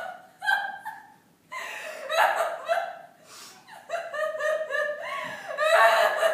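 One woman's wordless vocalising: several bursts of quick, high-pitched, chopped pulses like laughter or sobbing, about four or five a second, with short gaps between bursts and the loudest burst near the end.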